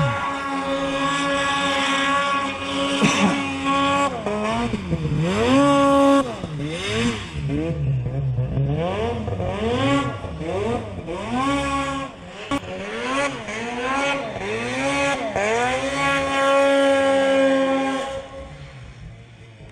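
Snowmobile engine revved up and down again and again in quick bursts while its track churns through deep powder snow. The revs hold steady for a couple of stretches, then drop away near the end.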